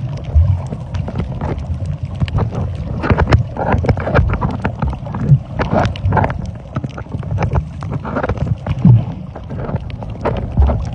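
Underwater sound picked up by a submerged camera while snorkeling: muffled water rushing and sloshing low down, with frequent sharp clicks and crackles.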